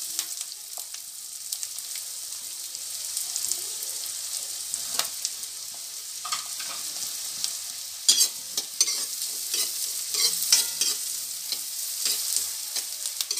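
Chopped onions sizzling in oil and butter in a steel kadhai, frying toward golden brown, while a metal spatula scrapes and clicks against the pan as they are stirred. The stirring scrapes come thicker and louder from about eight seconds in.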